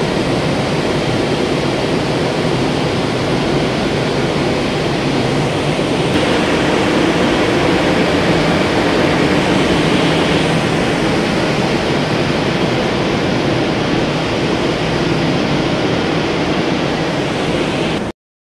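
Large vertical electric pump motors running in a pumping station, a loud, steady machine noise. It grows slightly louder about six seconds in and cuts off suddenly near the end.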